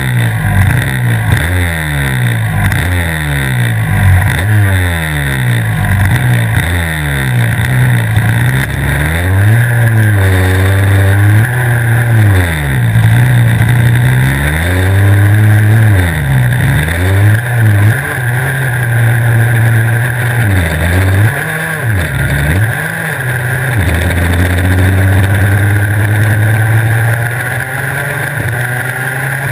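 Superkart's two-stroke engine revved in repeated throttle blips, its pitch rising and falling every second or two, then held at a steadier pitch for the last few seconds.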